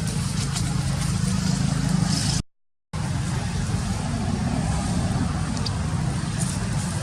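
Steady low outdoor background rumble, cut to silence for about half a second a little over two seconds in, then carrying on as before.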